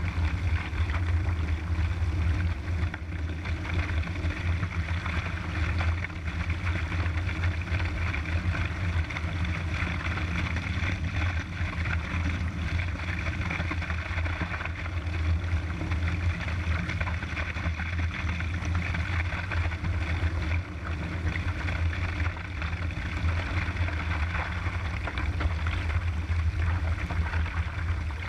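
Whitewater of the Severn tidal bore rushing and churning around a kayak surfing the wave, heard from a camera mounted on the kayak's bow: a steady, unbroken rush with a heavy low rumble.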